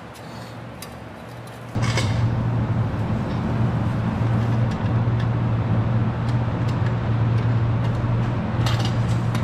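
A steady low machine drone with a strong hum and a hiss over it, starting suddenly about two seconds in.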